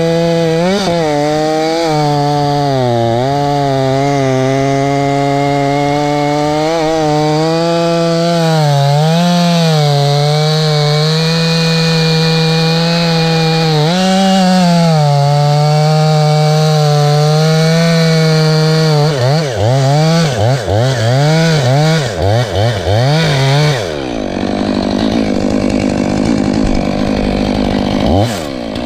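Stihl MS 500i fuel-injected two-stroke chainsaw running near full throttle through wood, its pitch sagging and recovering as the chain bites under load. About two-thirds of the way in, the revs swoop up and down about twice a second for several seconds. The saw then runs on more steadily, with one quick drop and rise in pitch near the end.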